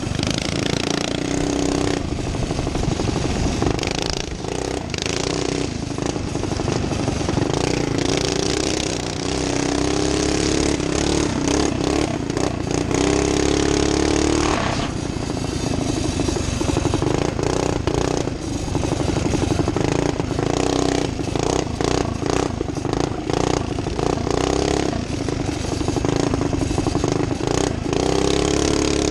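Small engine of a modified motorized barstool racer running hard, heard from onboard, its pitch rising and dropping with the throttle. Rattling and clatter come through often, especially in the second half.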